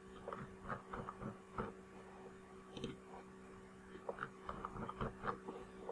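Faint scattered clicks and ticks of a computer mouse, clustered in three groups, while the on-screen page is scrolled, over a steady low electrical hum.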